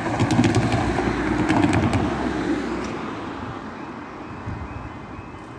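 A car drives over the level crossing, its tyres knocking several times on the rails. As it fades, the crossing's warning alarm starts up: a high tone that pulses at an even pace.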